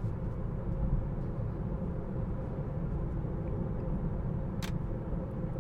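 Steady low road and tyre rumble inside the cabin of a moving Tesla Model 3, with no engine sound, a faint steady hum, and one short click a little before the end.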